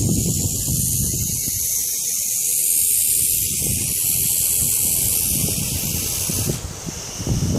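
Bull snake hissing: one long, loud hiss that cuts off sharply near the end.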